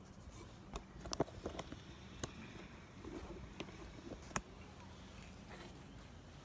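Scattered light clicks and taps of small metal parts being handled while the valves and springs of a 722.6 transmission valve body are fitted. The clicks are sharpest about a second in and again past four seconds, over a faint steady hum.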